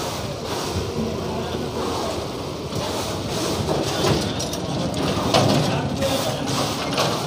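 Busy fish-market hubbub: background voices over a steady din of noise with scattered clatter.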